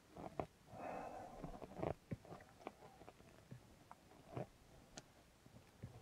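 Faint scattered clicks and scrapes of a small screwdriver pressed hard into a stuck screw on a metal lighter body, with a short rasping scrape about a second in.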